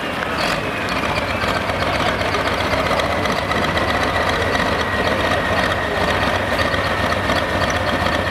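A John Deere hot farm pulling tractor's turbocharged diesel idling steadily, with a high whine that sinks slowly in pitch over the first few seconds and then holds, typical of the turbocharger spinning down.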